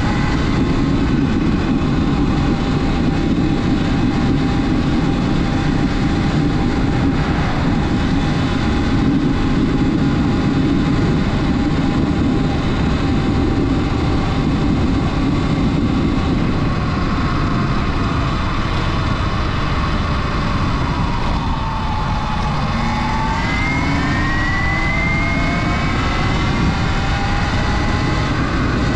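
Sur Ron Light Bee electric dirt bike being ridden: its electric motor and drivetrain whine over a constant rushing noise. About two-thirds through, the whine falls in pitch as the bike slows, then rises again as it speeds back up.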